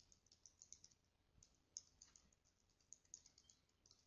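Faint computer keyboard typing: a quick, irregular run of key clicks.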